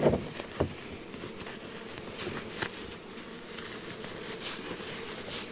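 Light knocks and soft clicks from handling beehive frames and equipment, two knocks close together near the start, over a faint steady background noise.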